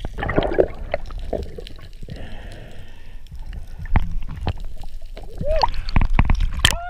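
Water gurgling and bubbling around a freediver's camera underwater, with a constant low rumble and many sharp clicks and knocks. Near the end the water sloshes as the diver surfaces, and a couple of short rising-and-falling tones are heard.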